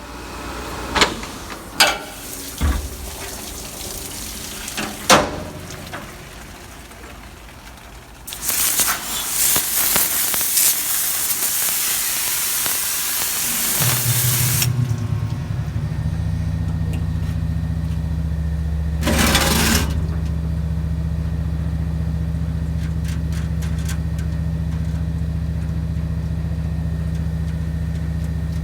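Metal vise parts clinking and knocking as they are handled, then a loud rushing hiss for several seconds. An electric shop motor then starts and runs with a steady hum, with one short hiss partway through.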